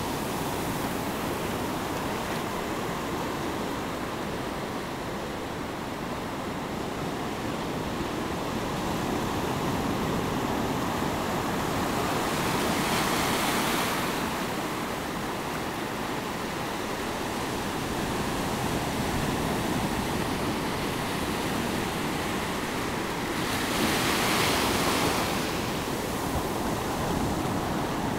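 Ocean surf washing up over a sandy beach: a steady wash of noise that swells louder and hissier twice, about halfway through and again near the end, as waves rush in.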